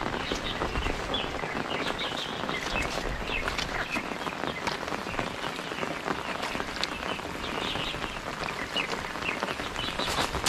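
Heavy rain falling steadily on the reservoir water and mud bank, with short high chirps scattered through it.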